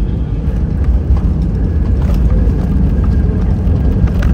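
Airbus A320 cabin during touchdown and rollout: a loud, steady low rumble of engines and airflow that grows louder about a second in, with light rattles near the end.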